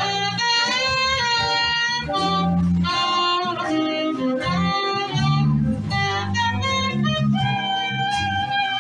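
Live saxophone-led party band playing through a PA: a melodic lead line over electric guitar, bass and drums.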